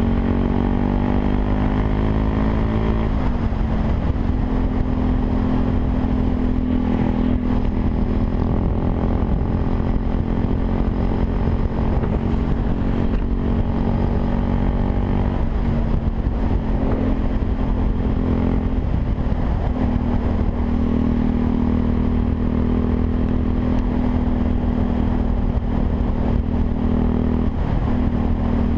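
Yamaha WR 125 R's single-cylinder four-stroke engine running through a Takkoni aftermarket exhaust. The engine note drops in pitch over the first few seconds as the revs fall, then holds fairly steady, with a couple of brief changes in revs.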